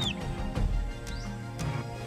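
Background music with a steady low tone, plus a couple of short, high, falling chirps.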